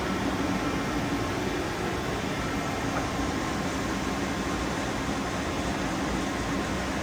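Steady mechanical hum and hiss of running machinery, with faint steady tones and no clear starts or stops.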